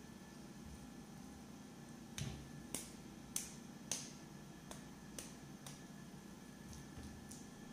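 A fork clicking and tapping against a pan as shredded cabbage is spread and pressed into it: a run of sharp ticks, the loudest four coming between about two and four seconds in, then a few fainter ones.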